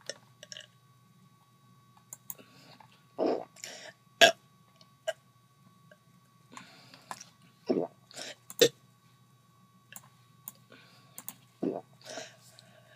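A person burping on purpose after swallowing air: three short burps about four seconds apart, with breathy sucks of air and sharp clicks between them.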